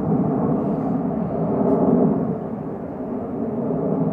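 Formation of F-16 Fighting Falcon jets flying overhead: a steady jet rumble that swells about two seconds in, then eases a little.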